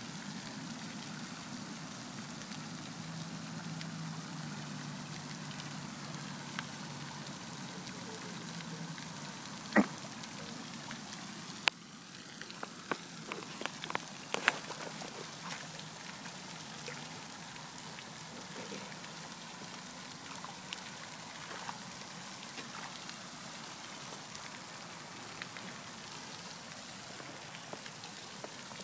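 Handling noise from a phone camera over a steady hiss: a low hum for several seconds, then a sharp knock about ten seconds in and a scatter of clicks and knocks a few seconds later.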